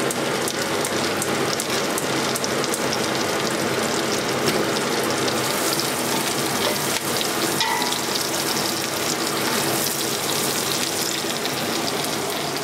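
Chopped onion sizzling steadily in hot fat in a large stainless steel pot, stirred with a wooden spoon: the onion being sweated until translucent.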